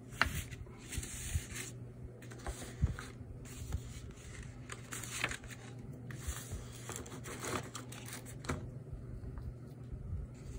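Ink strokes scratching across drawing paper: a run of irregular scratchy strokes, some short and some about a second long, over a low steady hum.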